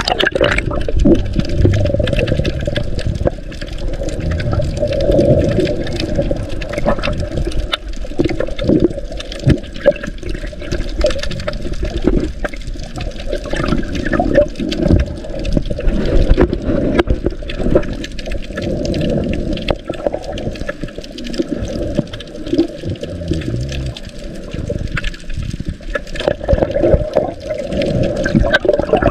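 Underwater sound picked up by a submerged camera: a muffled, low rush of moving water, with frequent small clicks and crackles throughout.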